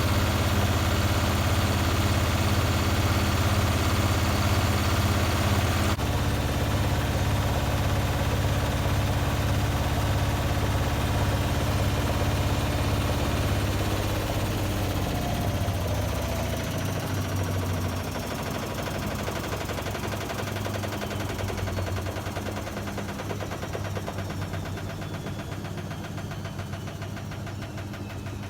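Hotpoint WMA30 washing machine attempting a spin with an unbalanced load: the drum and motor run with a steady hum, then from about halfway through the motor winds down, its whine falling in pitch as the drum slows and the sound fades.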